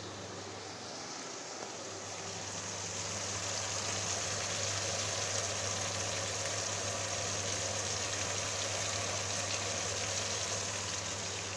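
Small floured whole fish sizzling as they fry in shallow oil in a pan, the sizzle growing louder about three seconds in.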